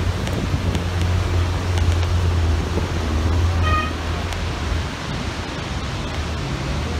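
A vehicle engine running with a steady low drone and road noise. A short horn toot sounds about three and a half seconds in.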